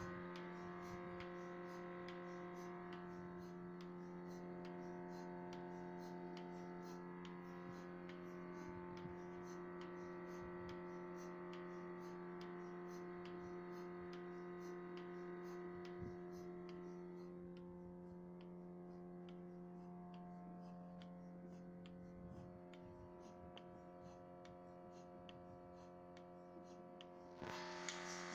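Trolley milking machine running: the motor-driven vacuum pump hums steadily while the pulsator ticks in a fast, regular rhythm. Shortly before the end the sound gets louder and brighter.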